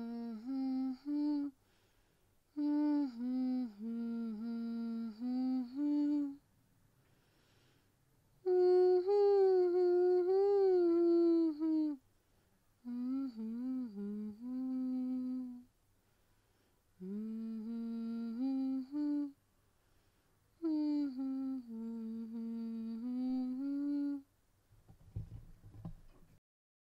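A single voice humming a slow melody in six short phrases with pauses between them, in a small room. A brief low rumble follows near the end.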